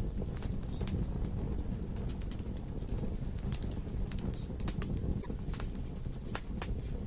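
Logs burning in a fireplace: a steady low rumble of flame with frequent sharp crackles and pops, a few louder pops in the second half.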